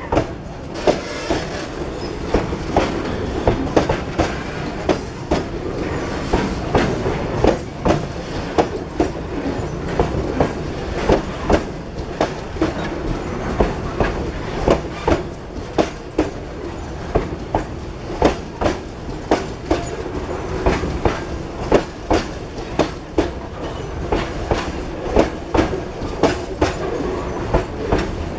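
Loaded freight boxcars rolling past close by: a steady rumble of steel wheels on rail with regular clickety-clack, about two clacks a second, as the wheel sets cross the rail joints.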